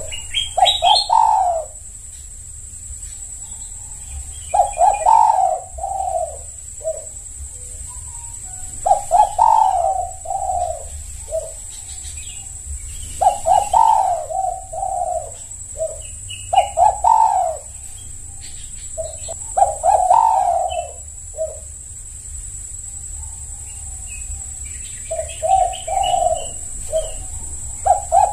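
Spotted dove (tekukur) cooing: about seven repeated cooing phrases, each lasting a second or two, with pauses of a few seconds between them, over a steady high-pitched hiss.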